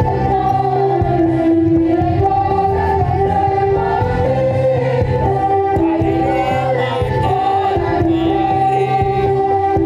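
A choir of boys and young men singing in held notes, with electronic keyboard accompaniment, amplified through a PA.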